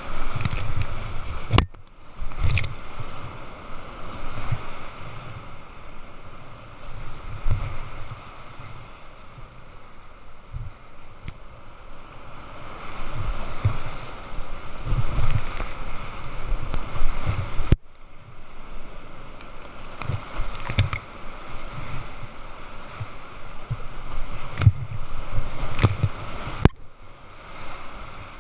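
Whitewater rapids rushing and crashing around a kayak, with spray hitting the camera and frequent dull thumps as waves break over the boat. The sound cuts off abruptly a few times.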